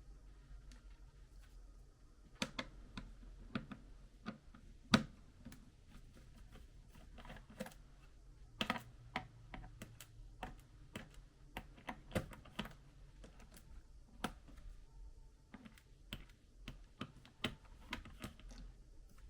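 Irregular light plastic clicks and taps from a laptop being handled, with one sharper click about five seconds in.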